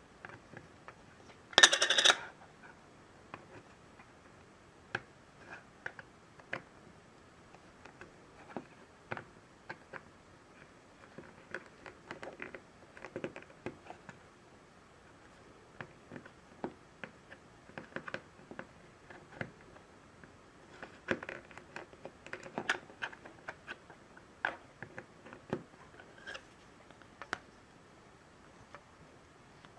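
Small plastic clicks and taps of a plastic collectible figure and its stand being handled and fitted together, with one louder brief rattle about two seconds in.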